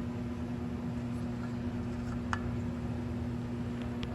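Steady mechanical hum with a constant low tone, with two faint clicks, one about halfway through and one near the end.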